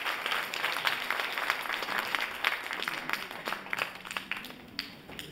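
Audience applauding, the clapping thinning out from about three seconds in to a few scattered claps near the end.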